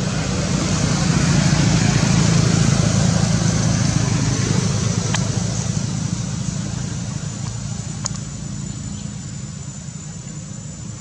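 Low engine rumble of a passing motor vehicle, swelling to its loudest about two seconds in and then slowly fading, with a couple of faint clicks.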